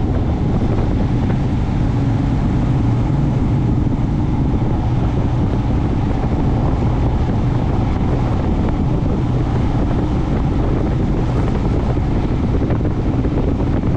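Motorcycle running steadily at road speed, its engine hum mixed with wind noise on the microphone.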